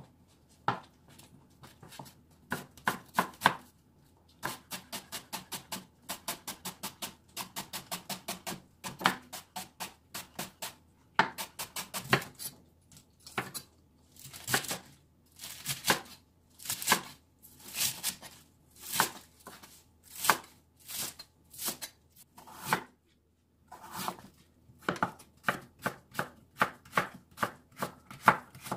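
Chef's knife slicing vegetables (green onion, leafy greens, Korean radish) against a wooden cutting board, each stroke a sharp knock. It comes in quick runs of about five cuts a second, slows in the middle to single cuts about one a second, then speeds up again near the end.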